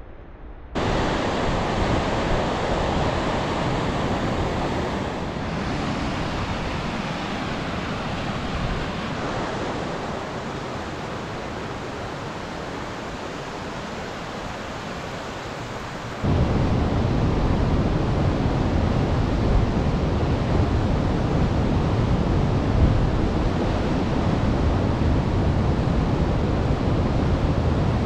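Rushing water of Icicle Creek, a mountain river running white over rapids: a steady, even rush. About 16 seconds in it steps louder, with a deeper rumble.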